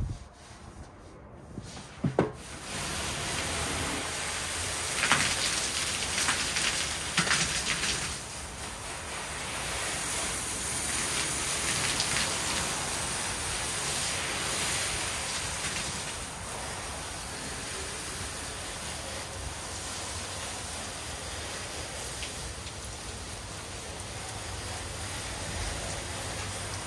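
Soft-wash spray wand hissing steadily as it sprays a fan of liquid onto house siding, starting after a short knock about two seconds in.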